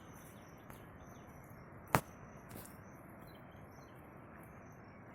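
A waterfall's steady rushing water. There is a sharp click about two seconds in and faint high chirping throughout.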